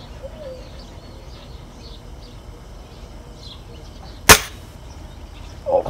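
A single sharp shot from an air gun about four seconds in, fired at a dove perched on a power line, which it misses.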